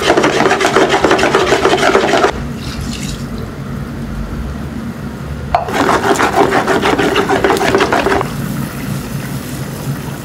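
Minced chicken being stirred fast with a wire whisk in a hammered aluminium saucepan, the whisk scraping and rattling against the pan in two bursts of about two and a half seconds each. Between the bursts there is a quieter steady cooking noise from the pan.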